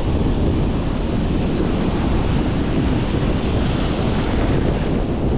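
Strong wind buffeting the microphone over the steady wash of breaking ocean surf.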